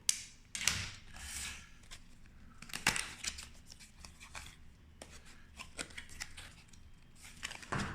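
A plastic Qiyi speedcube being handled and its layers turned: irregular quick plastic clicks and rustling scrapes.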